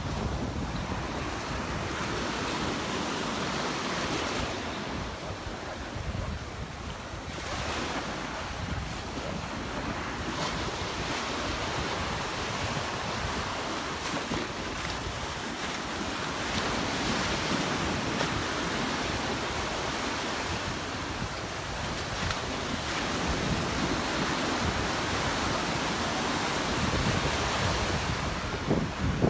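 Surf breaking and washing on a sandy beach, swelling and easing every few seconds, with wind buffeting the microphone.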